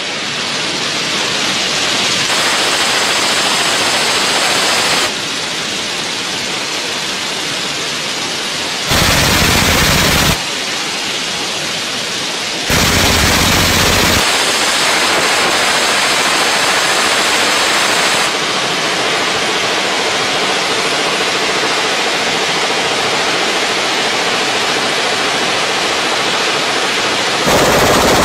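Suppressed belt-fed light machine gun firing long, continuous strings of automatic fire, heard as a dense, unbroken rattle. The loudness steps up or down abruptly several times.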